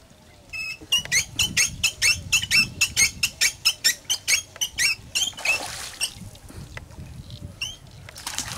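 Rapid run of short, high, rising chirps, about four or five a second, starting about a second in and thinning out after a short hiss of noise a little past halfway.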